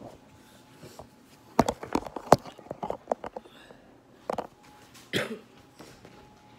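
Handling noise from a phone being set up on a table to film: a quick run of sharp knocks and taps about a second and a half in, a few more around three seconds and just after four, and a short rustle about five seconds in.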